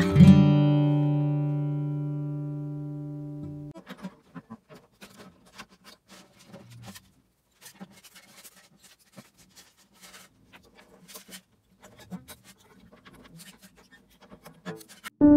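A final strummed chord on a Martin DSS-17 acoustic guitar with light-gauge strings rings out and fades for a few seconds, then cuts off abruptly. Faint scattered clicks and rattles of strings being handled during a string change follow. Near the end, electric piano music comes in loudly.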